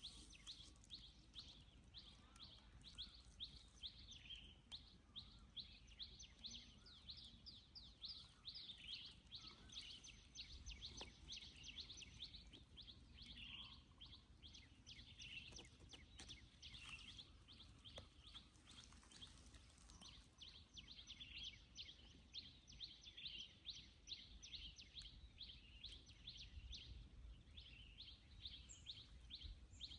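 Faint outdoor ambience: a steady run of short, high chirps at about four a second, with other scattered bird-like calls now and then.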